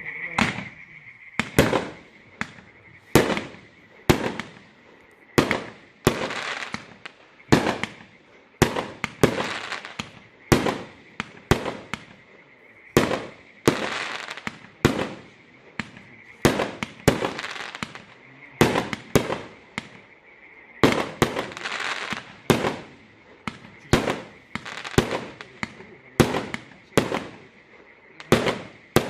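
A 120-shot consumer firework cake firing its shots one after another, a little over one sharp bang a second. Many bangs are followed by a fading crackle and echo.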